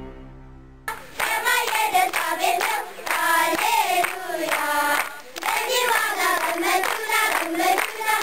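A large group of children singing together and clapping along in rhythm. It cuts in about a second in, as a soft sustained music track fades out.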